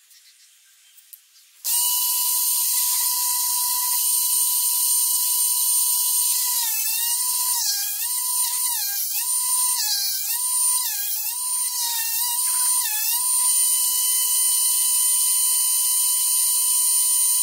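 Electric motor of a Drill Doctor drill-bit sharpener starts about 2 seconds in and runs with a steady high whine. Between about 6 and 13 seconds its pitch dips again and again, roughly every half second to second, as the chucked drill bit is turned against the grinding wheel. The load then comes off and the motor runs steadily again.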